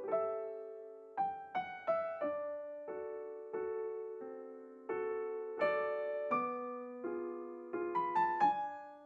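Solo piano music, single notes and chords struck and left to ring, with a few quicker notes near the end.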